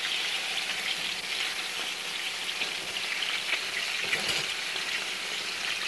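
Pork chunks sizzling steadily in hot oil in a nonstick frying pan, with fine crackling throughout, as the meat browns.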